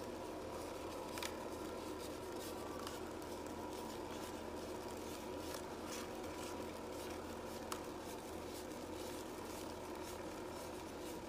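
Small home cotton candy machine running, its spinning head motor giving a steady hum with faint scattered ticks, and two sharper clicks about a second in and past the middle.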